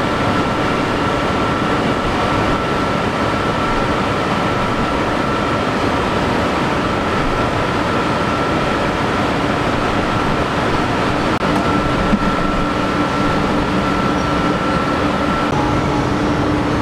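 Tea-processing factory machinery running: a steady, loud mechanical din with a constant whine over it.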